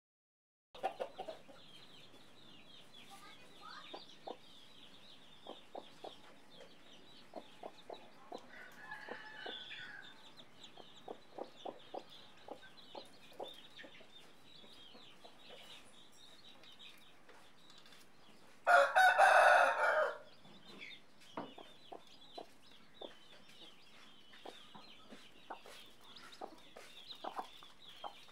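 Many chicks peeping continuously around a brooding hen, with scattered light pecking taps. About two-thirds of the way through, a rooster crows once, loud, for about a second and a half.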